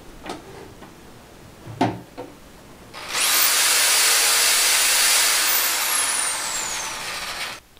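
A few light handling knocks, then about three seconds in a small 7-amp corded electric power drill starts with a quick rising whine and runs at speed for about four seconds. Its pitch slides down over the last two seconds before it stops abruptly. The drill is powered through a DC-to-AC power inverter from a 12-volt battery, as a load test of the inverter.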